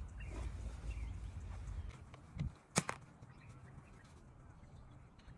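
Wind buffeting the microphone for about two seconds, then a single sharp click about halfway through, with birds chirping now and then in the background.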